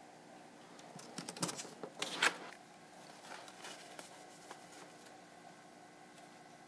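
Handling noise: a short run of clicks and rustling about one to two and a half seconds in, then faint room tone with a light hum.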